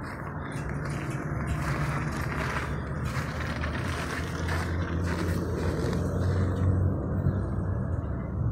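Steady low rumble with a low hum, stronger through the middle and easing off near the end.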